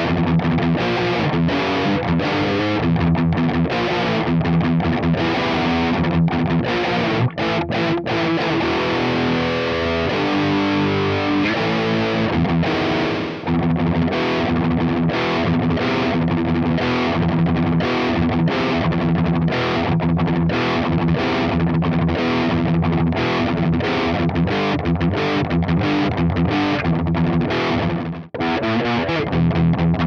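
Ibanez RG8570 J-Custom electric guitar with DiMarzio pickups, played through a distorted Diezel VH4 amp and a 4x12 cabinet of Celestion Vintage 30 speakers, in fast, rhythmic riffing. The playing stops briefly a couple of seconds before the end.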